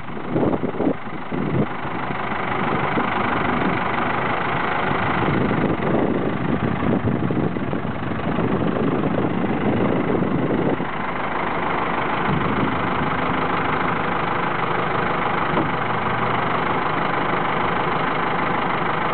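Ford 7610 farm tractor's diesel engine running as the tractor is driven and turned, uneven at first and settling into a steady run about eleven seconds in.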